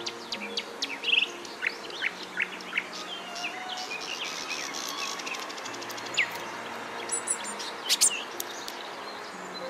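Small songbirds chirping and calling: many short, high, sweeping chirps with a fast trill about halfway through. Soft background music with sustained low notes plays underneath.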